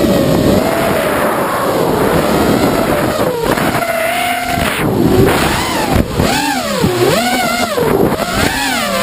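FPV racing quadcopter's brushless motors and propellers whining in flight, heard from the onboard camera. The pitch swoops up and down over and over as the throttle is worked, with deep dips in the second half, over a rush of air.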